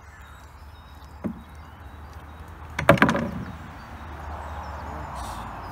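Canoe paddle clattering down onto wooden decking boards: a light knock about a second in, then a louder clatter of several quick hits with a brief ring. A soft rustling follows.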